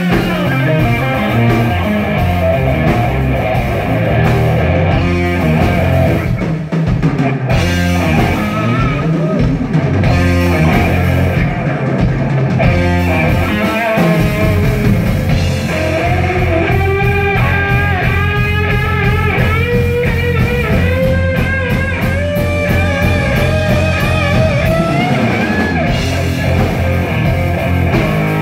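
Live rock band playing instrumental music on electric guitar, bass guitar and drum kit, loud and steady. About halfway through, a wavering lead melody with pitch bends comes to the front.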